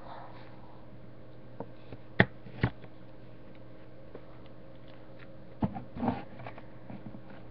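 A plastic handwriting pen handled and laid on the paper: two sharp clicks a couple of seconds in, then a few small knocks and a brief rustle around six seconds in.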